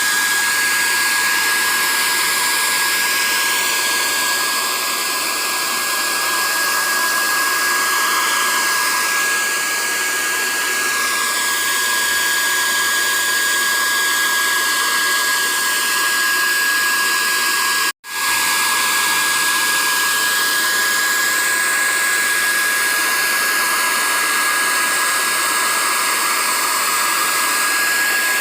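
Steady whirring blower noise with a constant high-pitched whine, cutting out for an instant about eighteen seconds in.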